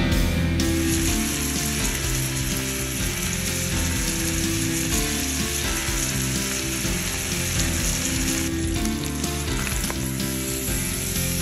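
Steak frying in a cast-iron skillet: a steady sizzle and crackle of hot fat, starting about half a second in.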